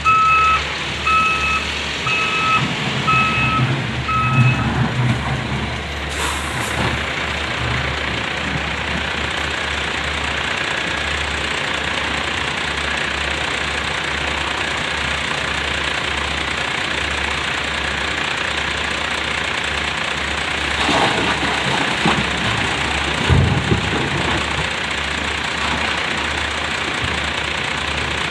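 Tata Hitachi ZX470 excavator's diesel engine running steadily under load, with a reversing alarm beeping about five times, roughly once a second, in the first few seconds. A few heavy knocks come about three-quarters of the way through.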